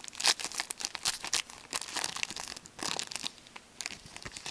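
Foil wrapper of a hockey card pack crinkling and tearing as it is opened and handled, in quick crackling bursts that thin out near the end.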